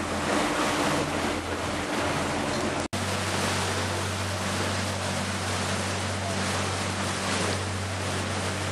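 Tour boat under way: its engine runs with a steady low hum under the rush of water past the hull and wind on the microphone. The sound breaks off for an instant about three seconds in, and the engine hum is stronger after the break.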